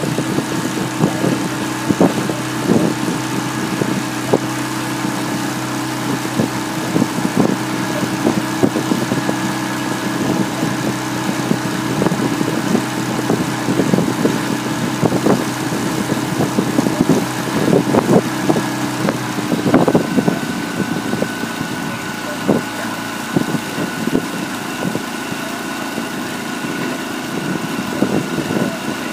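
Small outboard motor of a launch running steadily at low speed alongside a rowing eight. Its note changes about twenty seconds in, and irregular short thumps sound over it.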